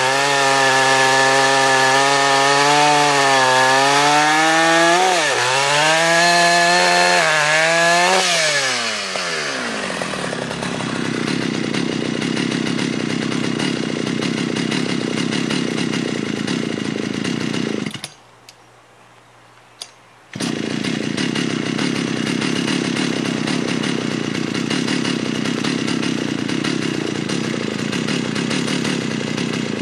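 Jonsered 820 two-stroke chainsaw cutting through a log at full throttle, its pitch sagging a couple of times as the chain bites into the wood. About eight seconds in the throttle is released and the engine winds down to a steady idle, broken by a drop-out of about two seconds just past the middle.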